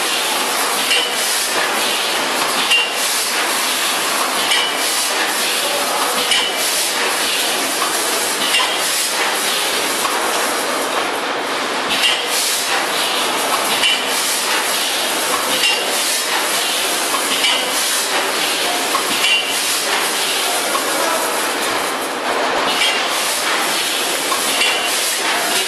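Vertical form-fill-seal granule packing machine with its weigher running: a steady mechanical clatter with a clink repeating about every two seconds as the machine cycles.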